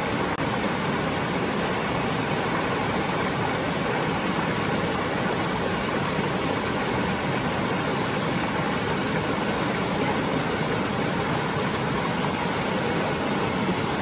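Steady rush of water pouring over the rock cascades of a waterfall, unchanging throughout.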